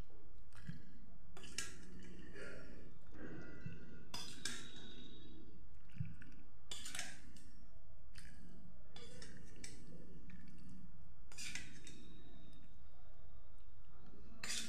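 A metal spoon clinking against a ceramic bowl as it scoops through thick jackfruit curry: a handful of short, sharp clinks at irregular intervals.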